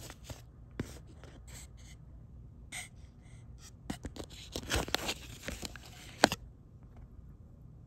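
Close handling noises: rustling, scraping and small clicks as a coin pendant and its card are handled near the microphone, with one sharp knock a little after six seconds, after which it goes quiet.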